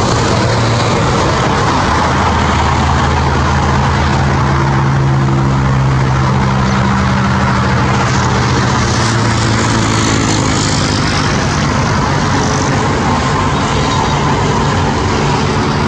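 Airbus A320neo's CFM LEAP-1A turbofan engines at takeoff thrust during the takeoff roll: a loud, steady roar with a low hum underneath.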